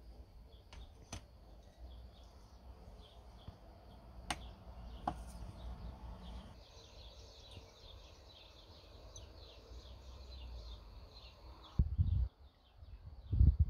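Outdoor background with a steady low rumble, a few sharp light clicks in the first seconds, and small birds chirping repeatedly in the background through the second half. Near the end, loud low gusts of wind hit the microphone.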